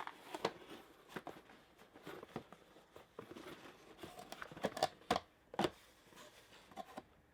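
Collectible packaging being handled and opened by hand: irregular crinkles, rustles and small clicks of plastic and cardboard, with a few sharper clicks about five seconds in.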